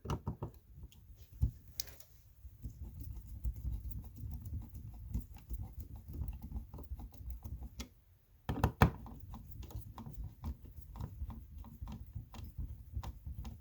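A hand screwdriver driving an electrical outlet's screws back into the wall box: irregular small clicks and scrapes over low handling rumble, with one sharper knock about nine seconds in.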